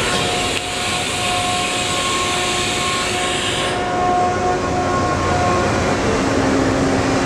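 Steady machine-shop hum with a low rumble and a faint, wavering whine, plus a hiss that stops suddenly about four seconds in.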